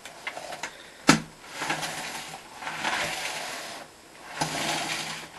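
Rummaging and handling objects in a search for a missing hoover part: small clicks, a sharp knock about a second in, rustling and scraping, then another knock followed by more rustling.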